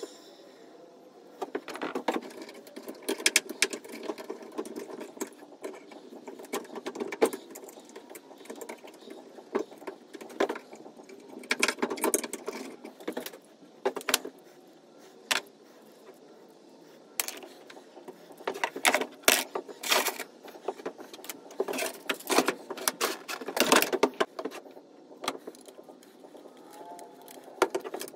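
Metal clinking and clattering as scrap expansion-valve parts (copper tubing and brass valve bodies) are handled and worked apart with pliers and cutters on a wooden workbench. Irregular clinks, snaps and knocks come in clusters, busiest in the second half.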